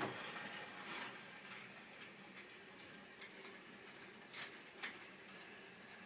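Faint steady hiss with two light clicks about half a second apart, a little after four seconds in, as model railway rolling stock is handled on the track.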